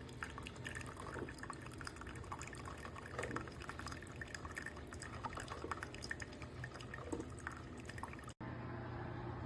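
Water gurgling and dripping in an electric coffee percolator, in quick irregular ticks. About eight seconds in it cuts off abruptly to a steady low hum.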